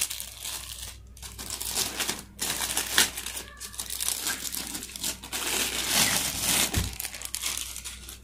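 Thin clear plastic bags crinkling and rustling as the plastic-wrapped flexible legs and parts of a gorilla tripod are handled and unwrapped, in irregular bursts with a few brief pauses.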